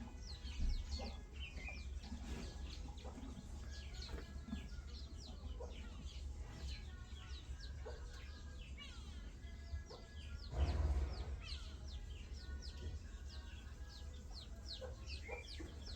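Birds chirping over and over in quick, short falling calls, over a steady low rumble. About ten and a half seconds in there is a brief louder rush of noise.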